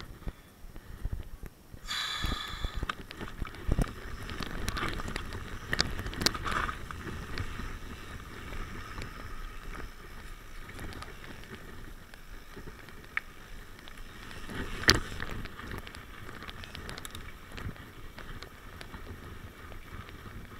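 Mountain bike rolling over a rough gravel and dirt trail: steady tyre noise with the bike rattling and occasional sharp knocks, the loudest about 15 seconds in, and wind on the microphone. A brief shrill squeal sounds about two seconds in.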